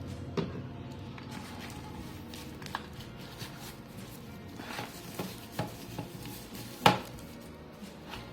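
Scattered clicks and knocks of a boxed wireless microphone set being handled and unpacked, with one sharp, louder knock about seven seconds in.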